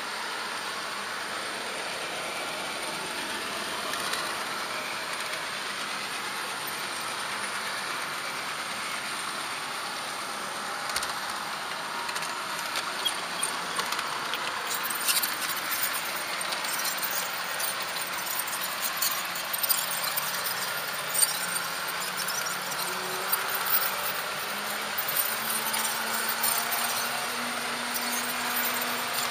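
Märklin HO-scale model train running along the track, heard from a camera riding on it: a steady rolling rush with a light squeal. From about halfway, dense irregular clicking over the track joins in, and near the end a faint low hum rises slightly in pitch.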